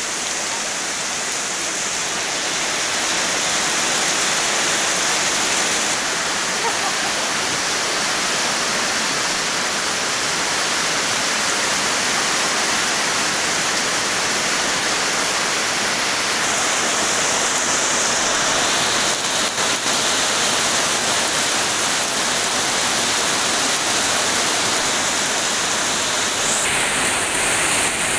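Heavy rain pouring in strong wind, a dense, steady hiss.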